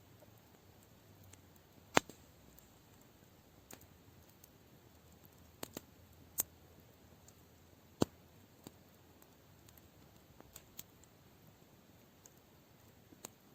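Campfire crackling: sparse, sharp pops of burning wood a second or more apart, the two loudest about 2 and 8 seconds in, over a quiet background.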